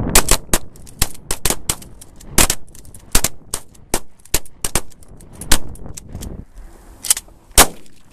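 Several shotguns fired in quick, irregular succession by more than one shooter, about twenty sharp shots, some nearly on top of each other, with a short pause late before two last shots.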